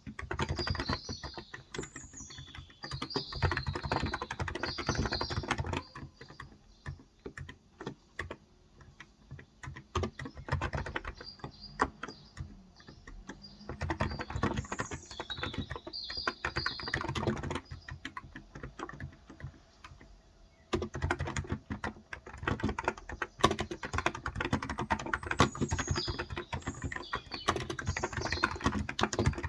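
Typing on a Cox Endeavor electro-capacitive (contactless) keyboard with light 35 g keys: a quick stream of soft key clicks in bursts, thinning out around a quarter of the way in and again about two-thirds through. Birds chirp faintly in the background several times.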